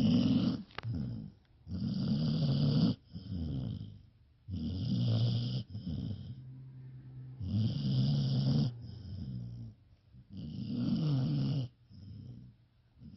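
Dog snoring in its sleep: a slow, even rhythm of about five long snores, one every two and a half to three seconds, each followed by a shorter, quieter breath.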